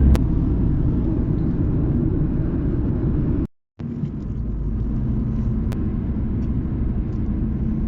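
Steady low rumble of road and engine noise inside a moving car's cabin. It cuts out for a moment about three and a half seconds in.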